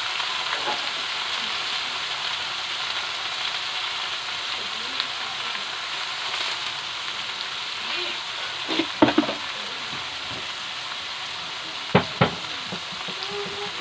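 Diced bottle gourd (upo) sizzling in a metal frying pan, a steady frying hiss. A short clatter about nine seconds in and two sharp knocks near the end.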